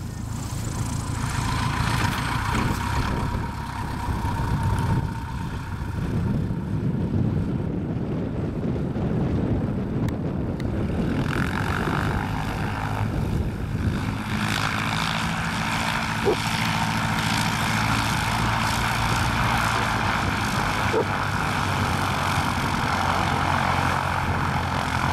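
Cub light aircraft's propeller engine running at low power as it taxis on grass after landing. It grows louder over the first couple of seconds, then holds a steady hum.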